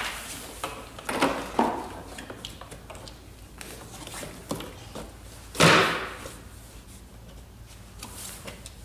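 Hard plastic parts of a kids' ride-on car knocking and clicking as they are handled and fitted together, with one louder, longer clatter a little past halfway.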